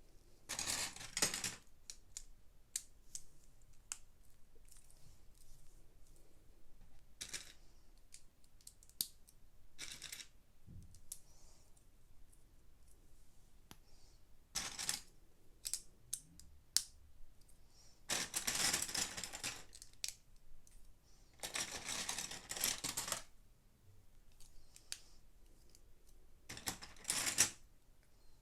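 Plastic Lego pieces clicking and tapping as they are handled and pressed onto a large model. There are scattered sharp clicks, and several longer rustling, rattling spells of a second or two each, the loudest two in the second half.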